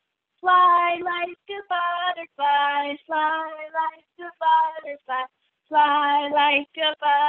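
A woman singing unaccompanied in short phrases of held notes, with silent gaps between the phrases.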